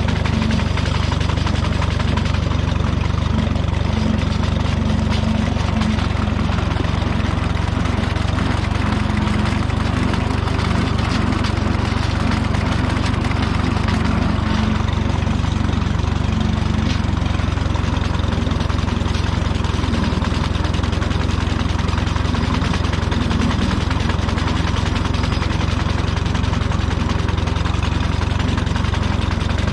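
Minneapolis-Moline Jet Star 3 Super tractor's engine running steadily, driving a sickle bar mower through pasture grass.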